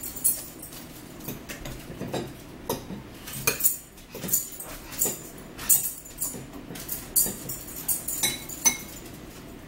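Cutlery clinking and scraping against bowls and plates during a meal, with a plastic squeeze bottle of ranch dressing being shaken and squeezed: an irregular string of short clicks and taps, about one or two a second.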